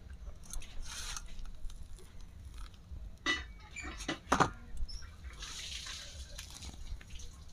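Ripe palmyra palm fruit being stripped by hand: scratchy rustling and tearing of its fibrous pulp, with a few sharper clicks about three to four and a half seconds in.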